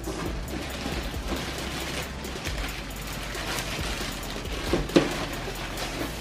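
Clear plastic wrap crinkling and crackling as a wrapped RC truck body is handled and lifted off its chassis. A sharp knock comes about five seconds in.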